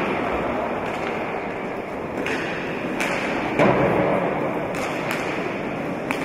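Roller hockey play: several sharp clacks of sticks striking the hard ball, the loudest about three and a half seconds in, over a steady murmur of spectators in the hall.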